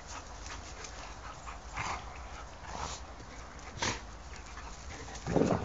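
Two dogs play-fighting, giving short vocal sounds about a second apart. The loudest and deepest of these comes near the end.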